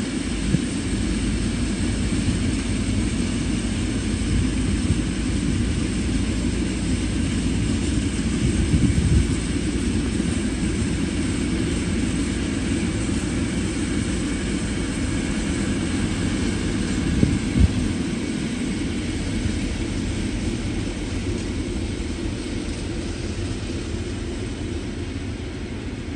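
Steady drone of diesel locomotive engines as a track-maintenance train shunts, with two short knocks, about 9 and 17 seconds in.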